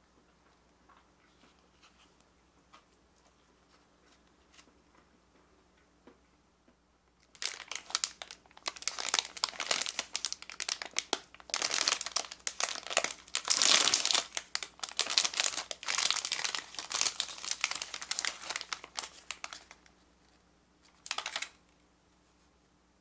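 Plastic pastry wrapper being torn open and crinkled by hand as a donut is pulled out, a dense crackling that runs for about twelve seconds, with one short crinkle again near the end. Before it, only faint soft ticks of fingers handling a sponge cake.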